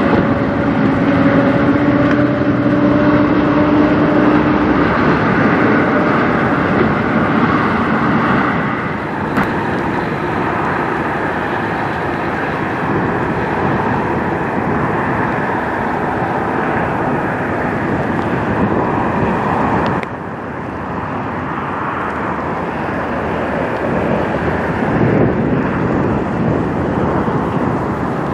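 Semi-truck diesel engines running amid steady traffic noise, with an engine tone rising slowly in the first few seconds.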